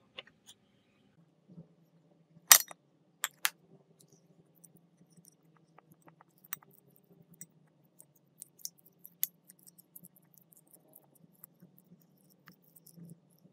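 A few loud sharp clinks between about two and a half and three and a half seconds in, then a metal fork tapping and scraping a ceramic bowl in small irregular clicks as it mashes steamed potato slices.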